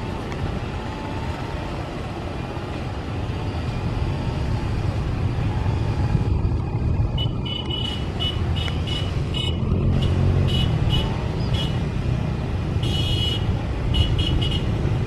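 Twin-engine jet airliner's engines running up at the start of its takeoff roll: a steady deep rumble that grows louder partway through. A run of short, high beeps sounds midway and again near the end.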